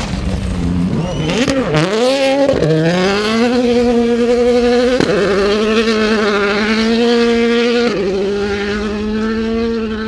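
2017 Ford Fiesta WRC rally car's turbocharged 1.6-litre four-cylinder engine. The revs dip and climb again through a gravel corner, then it accelerates hard away at high revs. There are two quick upshifts, each a sudden drop in pitch, in the second half.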